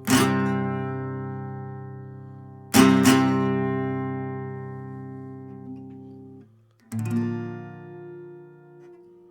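Acoustic guitar chords strummed and left to ring out slowly, three strums about three seconds apart, the second a quick double stroke. These are the closing instrumental bars of a song.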